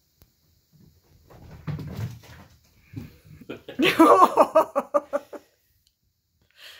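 A household pet vocalizing: a loud pitched call broken into rapid pulses, about six or seven a second, lasting a second and a half, after a low rumble of handling noise.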